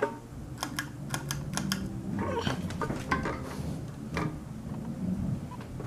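Moss Tropical Breeze ceiling fan's cast iron motor humming steadily, just switched to high speed in reverse. A quick run of light clicks comes about a second in, with a few more scattered knocks later.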